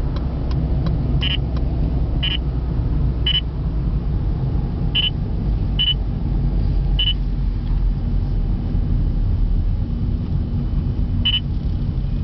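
Valentine One radar detector beeping at uneven intervals, seven short high beeps, as it alerts to Ka-band radar at 35.5 GHz coming from behind. Under the beeps is the steady rumble of the car's engine and tyres inside the cabin.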